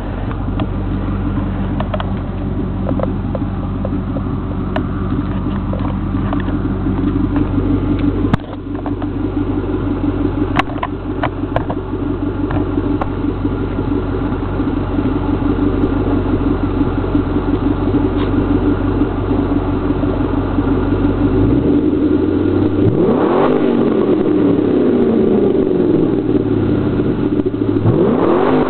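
2000 Ford Mustang GT's 4.6-litre V8 idling steadily at the exhaust, with a few light clicks in the first half. Near the end the engine is revved up and back down, and a second rev begins right at the end.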